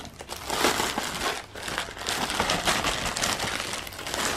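Plastic Amazon bubble mailer crinkling as it is pulled open by hand, a continuous irregular crackle with a short lull about a second and a half in.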